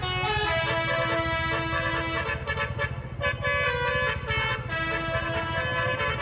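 A bus's basuri musical horn playing a tune, several horn tones sounding together and stepping from note to note, over a steady low rumble.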